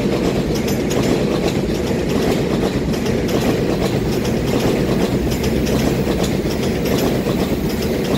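Twelve-car EMU3000 electric multiple unit passing close by: a steady rumble of steel wheels on the rails with faint repeated clicks as the cars roll over the track.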